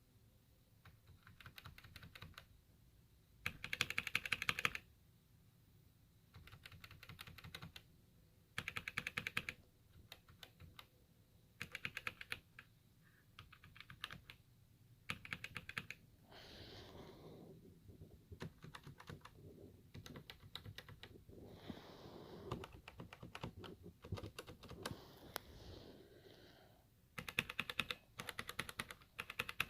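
Keys of a Roccat Vulcan 100 Aimo mechanical gaming keyboard being typed on in quick flurries of clacking, separated by short pauses. The loudest flurry comes about four seconds in, and another dense one comes near the end.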